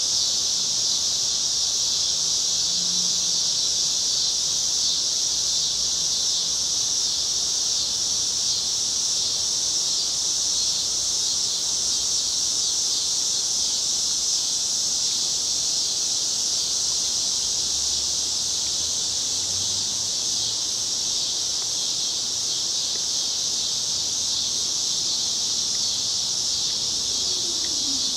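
Chorus of summer cicadas: a steady, unbroken high-pitched buzz at an even level. Near the end a faint low tone begins, falling in pitch.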